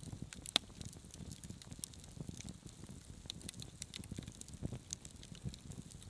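Wood campfire crackling: burning logs and embers giving scattered sharp pops and snaps, one louder pop about half a second in, over a low rumble.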